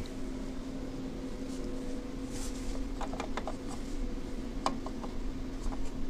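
Indoor room tone: a steady low electrical or ventilation hum, with a few faint clicks and taps about halfway through.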